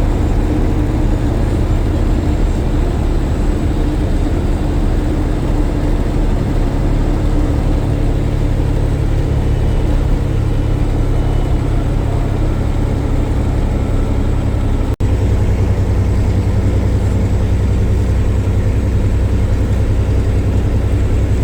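Steady engine and road noise of a moving vehicle heard from inside the cab while cruising. About two-thirds through it drops out for an instant, then carries on with a slightly changed engine hum.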